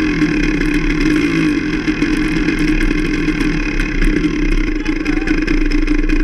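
Enduro motorcycle engine running at a steady, moderate throttle while the bike rides along a trail, its pitch holding nearly level.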